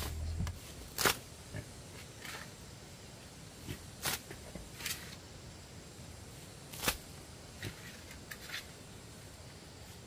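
Irregular light clicks and knocks, about ten of them, the sharpest about a second in and near seven seconds, over a faint steady hiss; a low hum dies away in the first half second.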